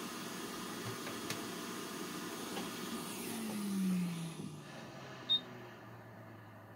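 Hot air rework station blowing with a steady hiss, then its fan winding down with a falling hum about three to four seconds in as the airflow fades, followed by a short sharp click.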